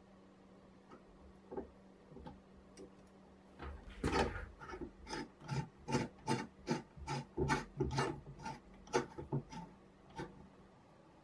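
Brass parts of a bottle corker being handled, with a few light clicks, then a knurled brass cap screwed by hand onto a threaded brass shaft: a run of short scraping and rubbing strokes, about two a second, from about four seconds in until near the end.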